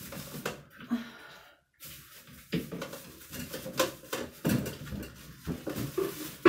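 Handling noises of things being moved about on a table: scattered knocks and clicks with plastic bag crinkling, and a brief gap a little under two seconds in.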